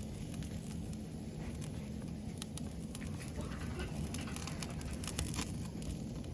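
Wood fire crackling in a fire pit, with scattered sharp pops that come thickest in the middle. A steady low rumble runs underneath.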